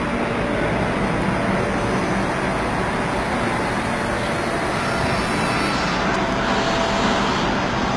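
A Mitsui Seiki VT-3A CNC machining center running: a steady machine noise with a faint hum.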